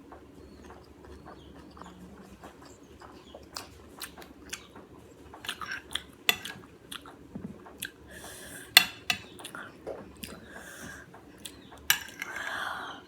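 Close-up eating sounds: cutlery clicking and scraping on a plate, with chewing in between. The clicks come irregularly, sharpest about nine and twelve seconds in.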